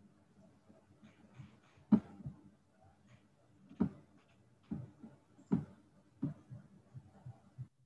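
A series of short, sharp knocks or clacks at irregular intervals, the loudest about two seconds in, with several smaller ones after it.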